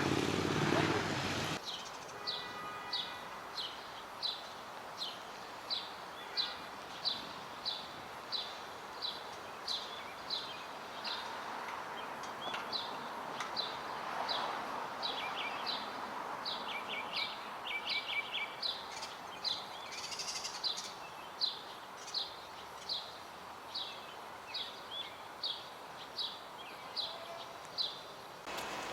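A songbird repeating a short, high, downward-slurred chirp about twice a second, with a few other bird notes and trills in between. Underneath is a steady background hum of the city.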